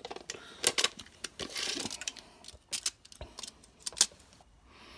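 Handling noise from a steel tape measure being pulled out and a plastic hand pump being picked up and held: a string of sharp clicks and rattles, with a short rasp about a second and a half in.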